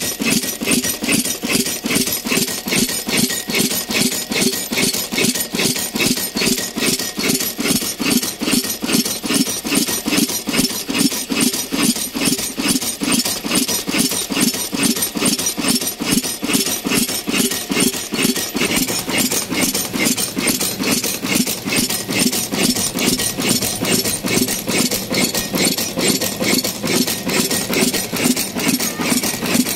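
Old 22 HP stationary diesel oil engine running, with an even, repeating beat of its firing strokes.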